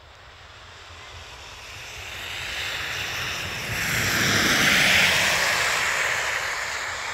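Pickup truck driving past on a wet road, its tyres hissing. The sound swells steadily to a peak about five seconds in, then fades as the truck moves away.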